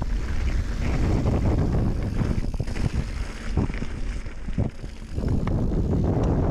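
Bike descending a dirt singletrack covered in dead leaves: wind buffeting the microphone over tyre rumble, with frequent knocks and rattles from the bike over bumps.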